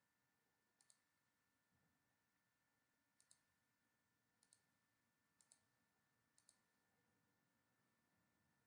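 Five faint computer mouse clicks at irregular intervals, each a quick double tick of button press and release, over near silence.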